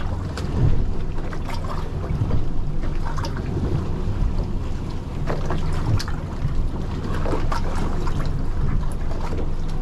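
Steady low rumble of wind on the microphone aboard a boat, with faint scattered clicks and taps from hands breaking the sinew away from a small tuna's gut cavity.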